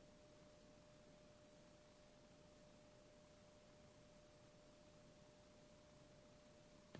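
Near silence: faint room hiss with a thin, steady tone held throughout.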